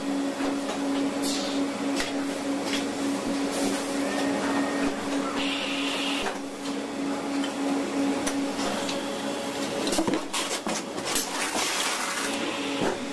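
Automated banknote bundling and packaging machinery running: a steady hum with frequent sharp clicks and several short hissing bursts.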